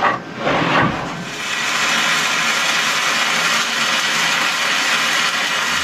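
Stick-welding arc crackling steadily from about a second in, an E7016 low-hydrogen electrode running a stitch weld of a steel deck plate onto a rib.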